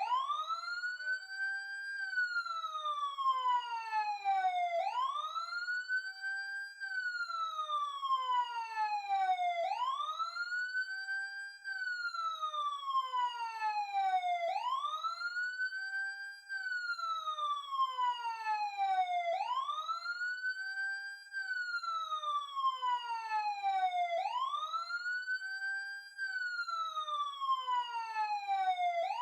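Emergency siren heard close up, sounding a slow wail. Each cycle sweeps up in pitch in about two seconds, then glides down for about three, repeating roughly every five seconds.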